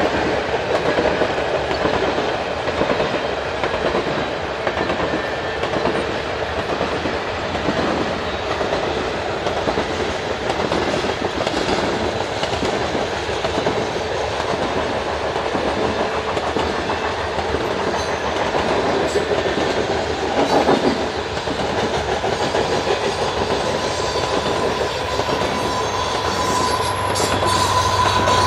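Loaded freight train of covered grain hopper cars rolling past, wheels clicking steadily over the rail joints. Near the end a mid-train diesel locomotive draws level, adding a low engine drone and a steady high whine.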